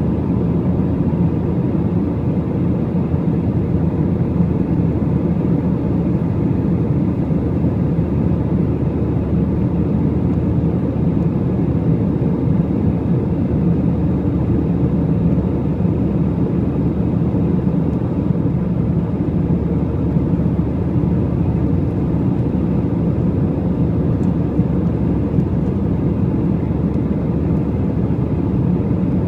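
Airliner cabin noise in flight: the steady low drone of the jet engines and the air rushing past the fuselage, unchanging throughout.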